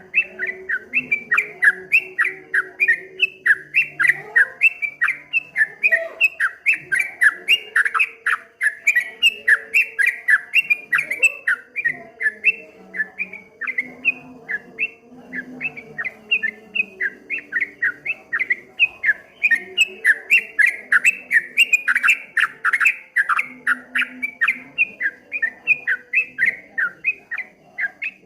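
Yellow-vented bulbul (trucuk) singing its fast 'ropel' song: a continuous run of short, sharp chirping notes, several a second, without a break.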